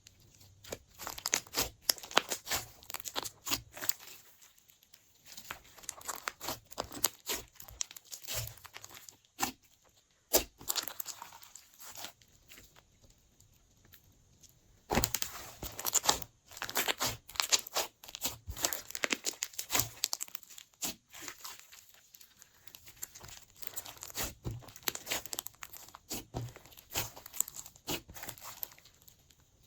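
Glossy slime being squished and stretched by hand: irregular runs of sticky crackling and popping clicks, with short quiet pauses between handfuls.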